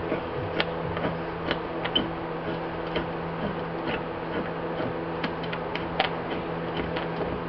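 Hose clamps being tightened with a screwdriver: irregular small metallic clicks and ticks as the clamp screw turns, over a steady background hum.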